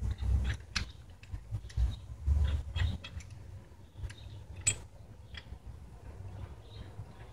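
Hand socket ratchet clicking in short, irregular runs as it turns a bolt on a rear disc brake caliper, with light metal clinks from the tool and a few dull knocks in the first few seconds.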